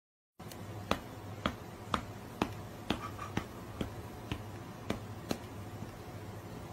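A run of sharp clicks or snaps at a steady pace, about two a second, over a low steady hum.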